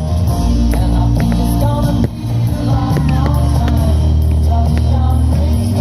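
Loud rock music with singing over a heavy bass line, with a few faint sharp cracks.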